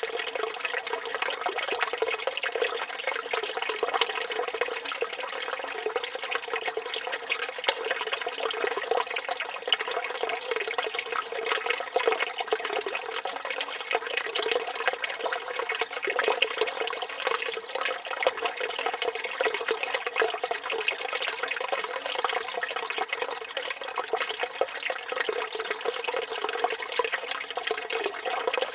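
Water from a village stone fountain (çeşme) pouring and splashing into its basin, a steady continuous splashing with no pauses.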